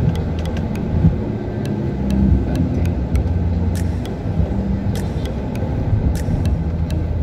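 Car engine and road noise heard from inside the cabin while driving: a steady low rumble with a faint engine hum and scattered light ticks.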